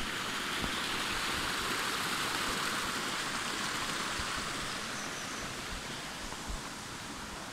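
Small forest stream spilling over a low stone step into a foaming pool: a steady rushing of falling water, a little louder in the first half and easing toward the end.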